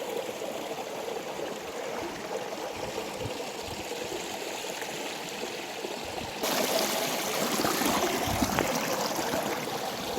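Shallow mountain stream flowing and trickling over rocks, a steady rush of water that grows louder about six and a half seconds in.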